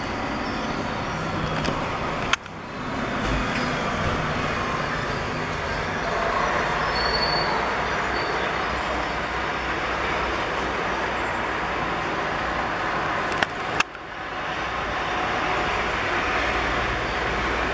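Steady street traffic noise, with a city bus driving past midway. Two sharp clicks break it, one a couple of seconds in and one about two-thirds of the way through, each followed by a brief drop in level.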